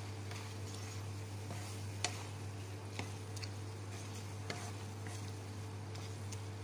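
Wooden spatula stirring eggplant and egg in a nonstick frying pan, with three sharp clicks of the spatula against the pan, the loudest about two seconds in. A steady low hum runs underneath.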